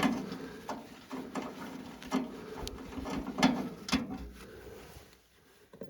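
Hand tools clicking and knocking on metal while bolts are worked loose from a mini excavator's cover panel: about half a dozen sharp knocks spread irregularly, over a faint steady hum.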